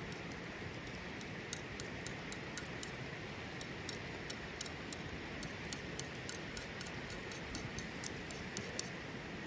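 Wood campfire crackling: irregular sharp pops and ticks, several a second, over a steady hiss.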